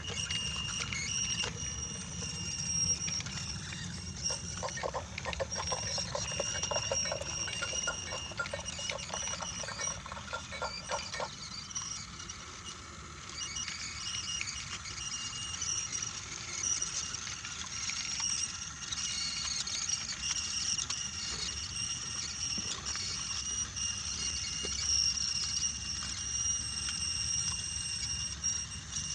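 Battery-powered Brio toy locomotive running on wooden track: a steady high motor whine over the low rumble of wheels rolling on the wooden rails, with a run of rapid clicks from about four to eleven seconds in.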